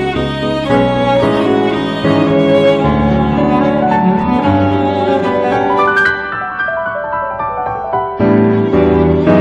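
Background music: bowed strings, violin and cello, with piano, playing slow sustained notes.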